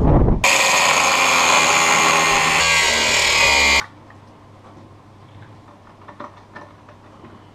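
Cordless angle grinder cutting into metal: a loud, steady, high-pitched grind lasting about three and a half seconds that stops abruptly. Then light clicks of parts being handled.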